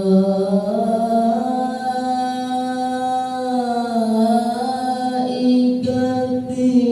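A reciter's voice chanting the Quran in melodic tilawah style, drawing out one long ornamented note. The pitch rises about a second in and then waves through small turns.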